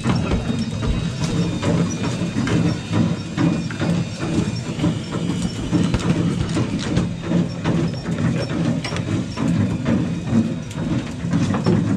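Steady low hum of the fishing boat's machinery, with frequent small clicks and knocks of fish and tackle being handled on deck.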